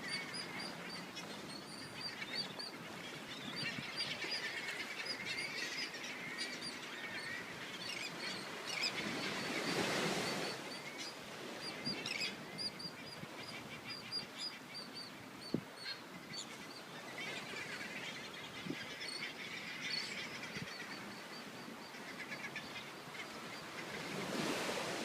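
A flock of birds calling, with many short high calls repeated quickly one after another over a steady hiss. The hiss swells briefly about ten seconds in and again near the end.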